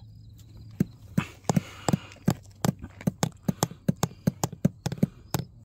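A hand-held rock hammering a tent peg into stony ground: a run of sharp knocks, getting faster to about four a second.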